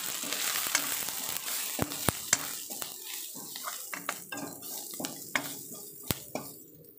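Onions and ground spices sizzling in hot oil in a kadai while a metal spatula stirs and scrapes through them, with several sharp clicks of the spatula against the pan; this is the masala being fried before water goes in. The sizzle fades toward the end.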